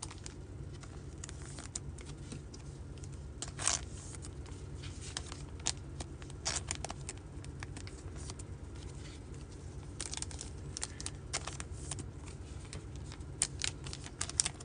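Trading cards and their packaging being handled: scattered short rustles, crinkles and clicks over a low steady hum.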